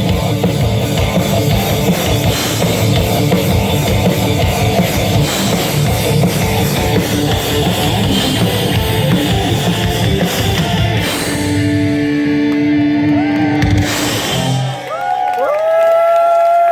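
Live rock band playing an instrumental passage with drum kit and electric guitars. About fifteen seconds in the band drops out, leaving a single held note that slides up into pitch and bends down as it ends.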